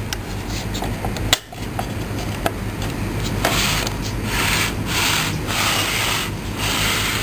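A few sharp clicks as the small plastic rear door of a 1:18 scale toy armoured vehicle is handled, the loudest about a second and a half in. Then, from about halfway, a run of about five rubbing or scraping strokes.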